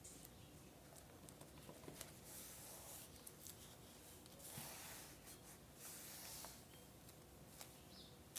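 Faint scrapbooking sounds of paper being rubbed or slid, three soft swishes, with scattered light ticks and clicks.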